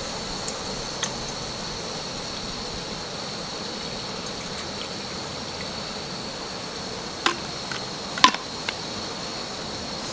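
Water pouring steadily from a bottle into a stainless steel pot on a canister camp stove. A few sharp clicks come near the end, the loudest about eight seconds in.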